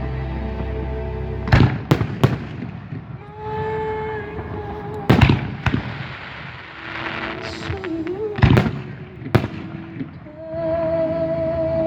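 Fireworks going off: about seven sharp bangs, some in quick pairs, spread across several seconds.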